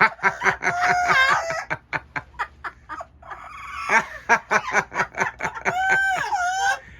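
Amazon parrot making a fast run of clicking sounds, with warbling, whistled calls about a second in and again near the end.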